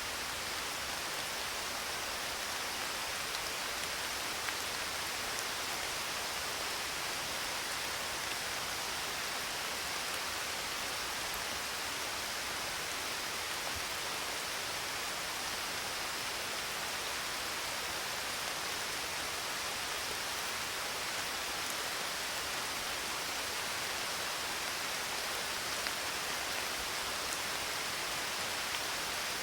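Steady rain falling: an even, unbroken hiss with a few faint drop ticks.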